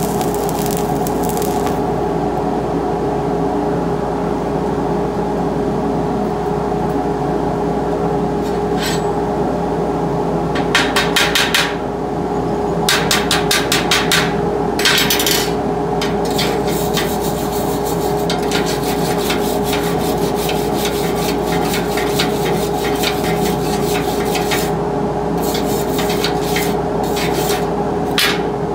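An electric arc crackles for the first second or so as a tack weld on the steel butt joint is finished. Then, from about ten seconds in, slag is cleaned off the tack welds in repeated bursts of sharp tapping and scraping that stop and start until near the end. A steady hum from the welding machine runs underneath.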